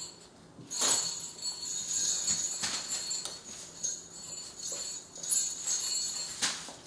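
Dog claws clicking and scrabbling on a hardwood floor as a mother dog and her puppies wrestle, with the metal tag on her collar jingling.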